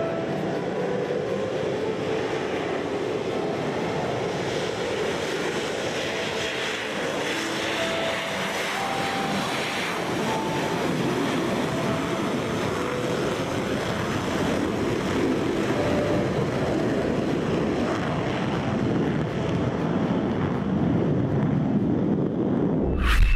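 Jet engines of a pair of MiG-31 interceptors taking off: a steady jet noise that swells slightly as they climb away. It is cut off near the end by music.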